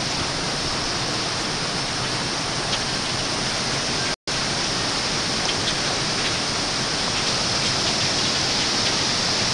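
Hurricane wind and rain heard as a steady, even rush of noise. It cuts out completely for a split second about four seconds in.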